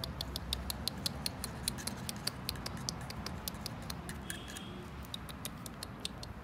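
Metal tweezers clicking sharply as they pinch ticks out of a dog's ear, quick light clicks about five a second.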